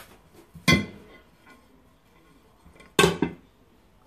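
A ceramic serving plate clinks twice against a cooking pot, about a second in and again about three seconds in, each clink ringing briefly, as the plate is laid upside down over the pot so it can be flipped.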